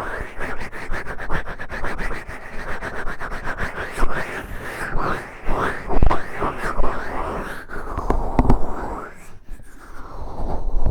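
A fingertip digging and scratching inside the ear of an ASMR microphone: fast, muffled rubbing and scraping strokes close up, with a few louder pops.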